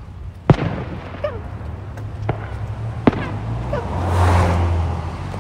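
Fireworks shells bursting: a sharp bang about half a second in, smaller pops, and another bang about three seconds in. A rushing noise over a low hum swells and fades around four seconds in.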